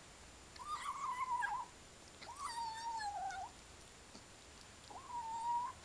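Black-and-white kitten meowing three times, high-pitched, each call about a second long, the last one shorter.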